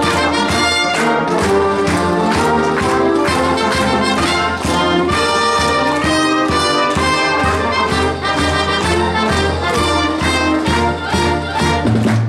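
Marching band playing a brass arrangement: trumpets and sousaphones sounding chords over a steady beat of snare and bass drums.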